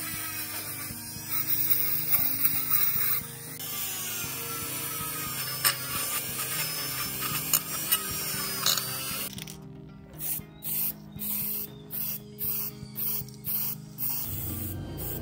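A handheld rotary tool grinds and polishes a cast-aluminium motor housing, its whine wavering as it bites. From about ten seconds in, an aerosol spray can gives short hissing bursts, about two a second. Background music runs underneath.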